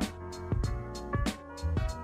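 Background music with a steady drum beat over sustained pitched tones.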